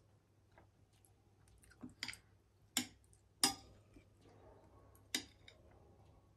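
A person chewing a mouthful of Korean ramyun noodles, with about five sharp clicks between about two and five seconds in.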